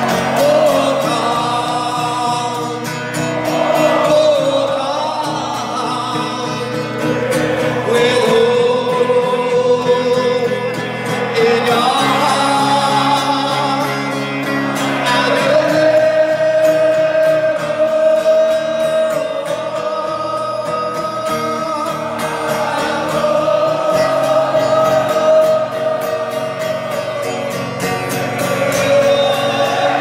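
A huge crowd of football fans singing together in unison, with long held notes, over music from the fan park's stage sound system.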